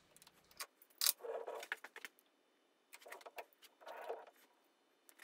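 A few faint metallic clicks and short clinking rattles as a metal lathe's tool post and carriage are handled and repositioned, the lathe itself not running.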